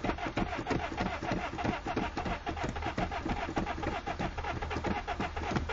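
Honda Civic VTEC four-cylinder engine being cranked by its starter without catching: an even chugging of about six pulses a second. The engine is flooded from repeated pumping of the gas pedal.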